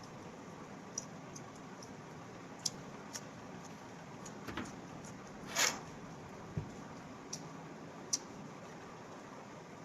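Scattered small clicks and one brief louder rustle about five and a half seconds in, over a faint steady hiss: chicken lollipops being handled and eaten.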